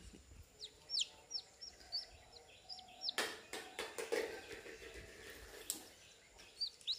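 Newly hatched chick peeping: short, high peeps that fall in pitch, several a second, pausing in the middle and starting again near the end. In the pause, a burst of rustling and knocks.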